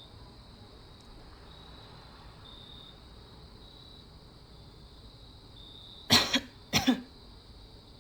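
Two short coughs, less than a second apart, over a steady background of crickets trilling.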